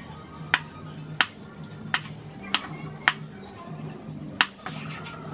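Large kitchen knife chopping through food onto a wooden cutting board: six sharp chops, each half a second to a second or so apart.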